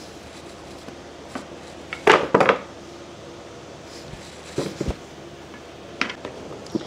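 A cleaver scraping and knocking on a plastic cutting board while sliced taro is scooped off it into a plastic bowl: a few scattered clatters, the loudest cluster about two seconds in.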